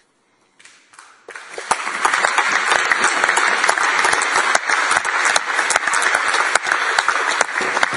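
A chamber full of people applauding, starting about a second in, quickly growing loud, and beginning to die away near the end.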